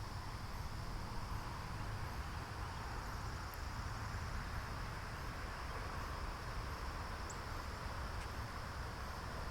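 Steady outdoor ambience: a continuous insect chorus over a low rumble, with a faint short high chirp about seven seconds in.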